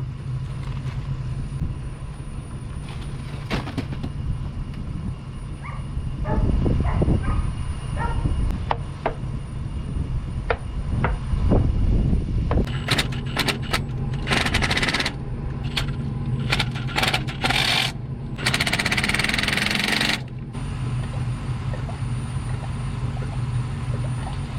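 Scattered metallic clinks and knocks over a steady low rumble, with two stretches of hiss in the second half.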